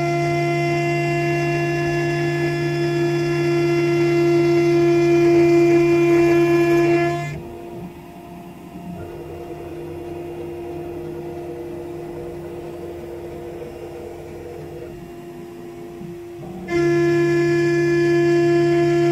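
0.8 kW CNC spindle milling aluminium plate: a loud, steady, pitched whine from the cut. About seven seconds in it drops to a much quieter hum, then comes back sharply near the end.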